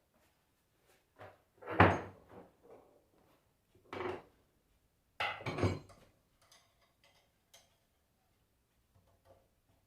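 A few separate knocks and clatters of metal tools and alternator parts being handled on a workbench, the loudest about two seconds in and two more around four and five seconds in, during work to get the alternator's bearing out.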